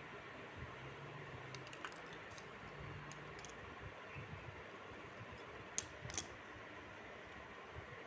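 A few light, scattered clicks and taps of a screwdriver working a dab of grease and the centre-stand rod, the sharpest two a little past the middle, over a faint steady hum.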